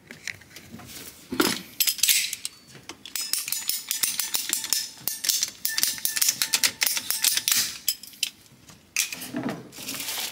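PVC condensate drain pipe and fittings being handled and pushed together, giving a quick run of hard plastic clicks and clatter.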